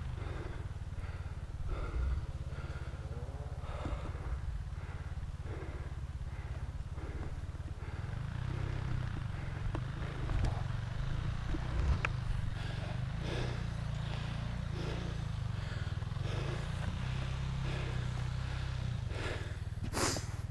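2006 Yamaha 250 dirt bike engine running at low speed along a trail, a steady low rumble heard from the rider's helmet, with a sharp thump near the end.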